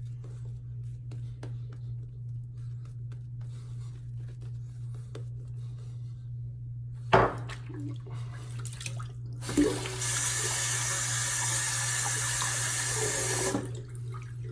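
A water tap running into a sink for about three and a half seconds, starting about ten seconds in and shutting off abruptly, after a sharp knock a few seconds earlier.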